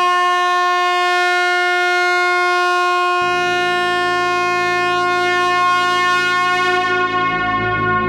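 Truck air horn held in one long, loud, steady blast. A lower tone joins about three seconds in.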